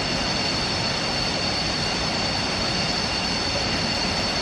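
Waterfall water rushing steadily over rocks, with a thin, steady high-pitched whine over it.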